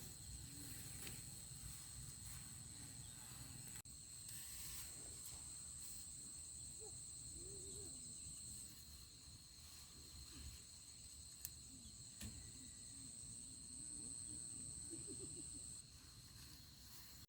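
Insects droning in a steady high-pitched whine, with a second, higher whine that comes in about four seconds in, breaks off, returns and stops near the end; a few faint, wavering low calls sound in the background.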